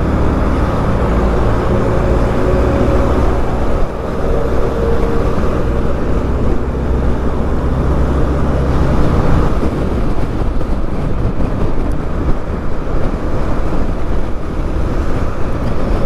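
Single-cylinder Honda Twister motorcycle being ridden, its engine running under wind and road noise. The steady low drone gives way to a looser, noisier rumble about halfway through as the bike slows in slow traffic.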